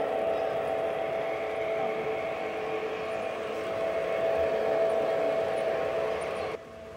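Lionel O-gauge model trains running on the layout: a steady mechanical hum with a whir over it, cut off suddenly near the end.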